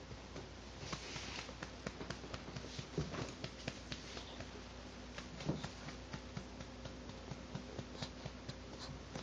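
Soft, irregular pats and rubbing of a hand on a newborn's back while burping him, with two slightly louder knocks about two and a half seconds apart.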